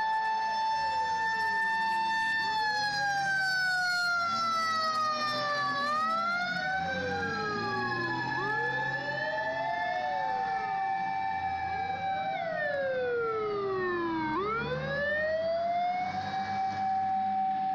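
Sirens of several Japanese fire engines, one a Hino Ranger, wailing together. Each one rises and falls slowly over a few seconds, and they overlap out of step, over a low engine rumble.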